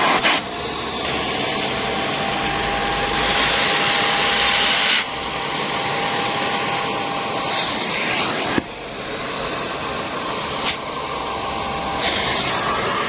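Kärcher Puzzi 10/1 spray-extraction cleaner's suction motor running, its rushing air noise swelling and easing as it draws air. A thin whistle comes and goes, and there are a few sharp clicks.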